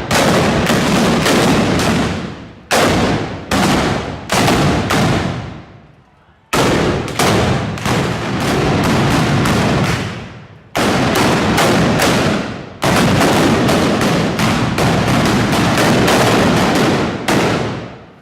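Volleys of black-powder arquebus shots fired in quick, overlapping succession, each crack trailing off in a long echo. The firing stops briefly about 6 and 10.5 seconds in and dies away near the end.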